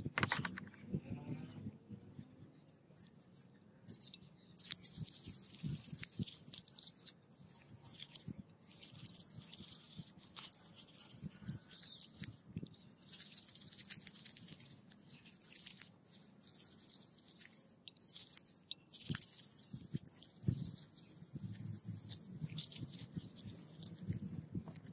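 Toothbrush bristles scrubbing a dirty metal angle-grinder part wet with cleaning liquid, a hissy scratching in repeated strokes with short pauses.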